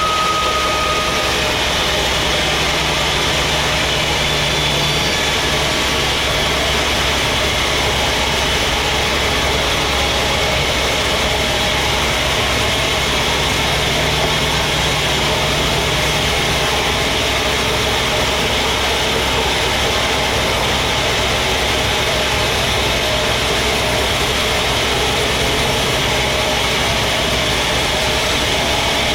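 Sawmill machinery running steadily: an even, continuous engine-like hum with a dense noise that does not change.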